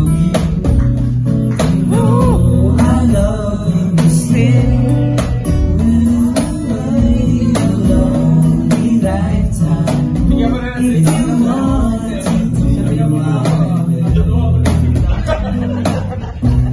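Live acoustic cover: a boy singing into a microphone, backed by strummed acoustic guitar and a cajón struck in a steady beat.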